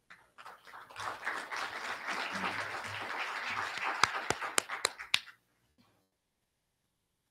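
An audience applauding for about five seconds, with a few loud, sharp claps close by near the end, then stopping abruptly.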